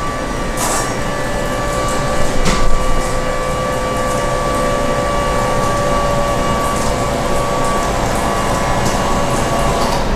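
Magic Mobility Frontier V6 power chair's electric recline actuator running steadily as it lowers the backrest: a constant motor whine with two brief clicks in the first few seconds.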